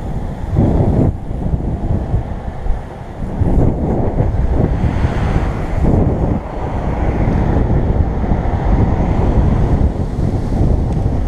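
Wind buffeting a helmet-mounted camera's microphone as a bicycle is ridden fast along a road, a heavy low rumble that surges every few seconds.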